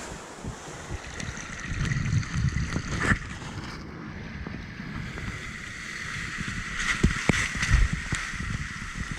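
Seawater sloshing and gurgling in uneven surges, with a few sharp knocks about three and seven seconds in.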